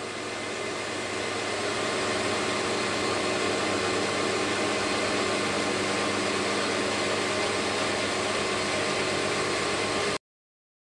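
Metal lathe running while a carbide-insert tool faces the end of aluminium round stock: a steady, even whirring hiss with a faint hum under it, building slightly over the first couple of seconds. It cuts off abruptly near the end.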